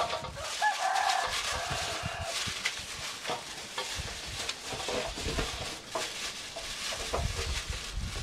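A chicken calls once, a pitched call of about a second and a half starting about half a second in, over scattered light clicks and knocks of things being handled.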